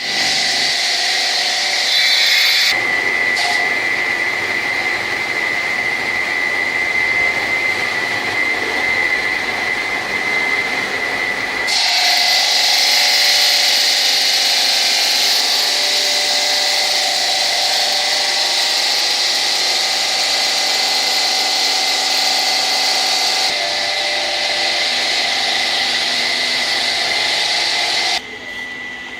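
Stone-cutting machinery running loudly with a steady high whine and hiss. The sound changes abruptly several times and drops quieter near the end.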